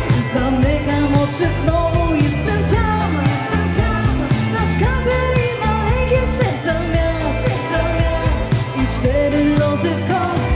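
Live dance band playing an upbeat song, a singer's voice carried over bass, keyboard and a steady drum beat through the PA.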